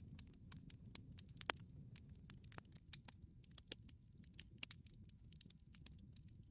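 Campfire crackling softly: irregular sharp pops and snaps over a low rumble of the flames.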